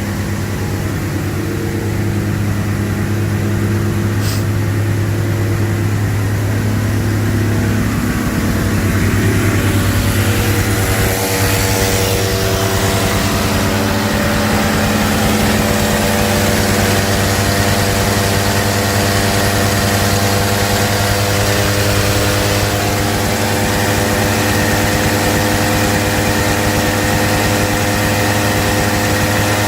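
1982 Ford Granada's straight-six engine running at a steady cold idle on the choke, just after its first start on a rebuilt carburetor. About ten seconds in its note picks up slightly and grows brighter, and there is a single click about four seconds in.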